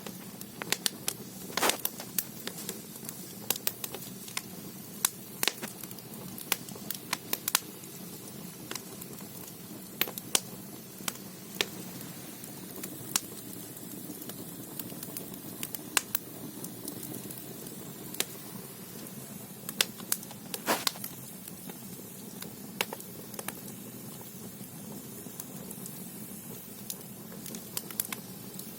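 Firewood burning in the firebox of a Korean ondol (gudeul) floor-heating room: irregular sharp crackles and pops, a few louder ones, over a steady low background of the fire.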